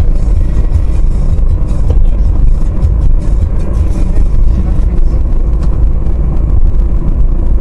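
Steady low rumble of a car driving at highway speed, heard from inside the cabin by a dashcam: tyre, engine and wind noise.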